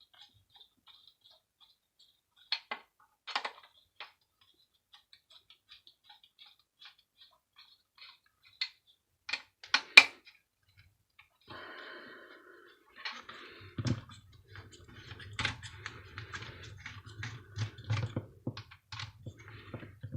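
Screwdriver work on a small electric bar heater's steel casing: a run of light ticks at about four a second, scattered clicks and one loud metal knock about halfway through. In the last third a low steady hum sets in under busy clattering of metal parts.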